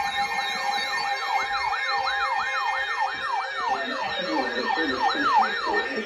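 Electronic alert siren, a tone rapidly sweeping up and down about two to three times a second over a steady tone. Lower music-like sound joins in partway through.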